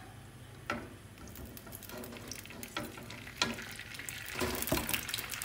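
Cubes of white tofu frying in plenty of hot oil. A few sharp pops at first, then the sizzle and crackle grows denser from about three seconds in.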